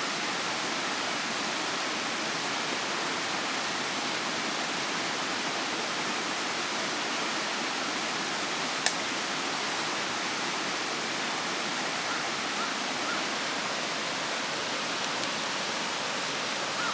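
Wood fire burning hard in a compact YOLER camping fire stand, a steady rushing noise from the strong draft of its tall chimney-like body. One sharp crackle of the firewood comes about nine seconds in.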